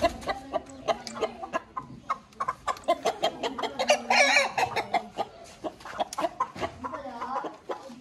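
Chickens clucking and squawking as they are caught and held, in many short calls, with one louder, longer wavering call about four seconds in.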